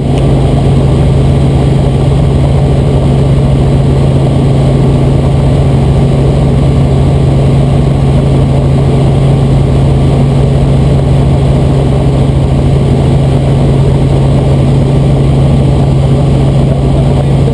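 Robinson R44 Raven II helicopter in cruise flight, heard from inside the cabin: its six-cylinder Lycoming engine and rotors make a loud, steady drone with a strong low hum.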